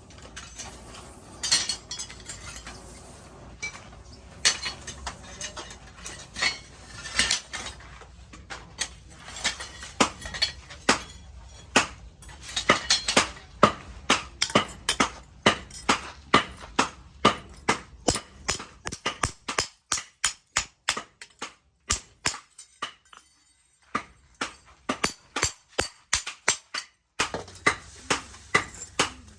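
Hammer blows on steel being forged, each strike ringing sharply. The blows come irregularly at first, then settle into a steady rhythm of about two to three a second.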